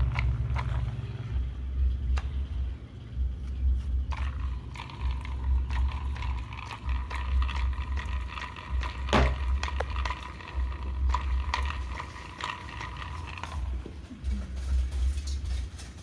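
Clicks and knocks of a plastic washing-machine gearbox housing and gears being handled and fitted together by hand, over a loud low rumble that comes and goes. From about four seconds in until near the end, a steady high whine with overtones runs behind it.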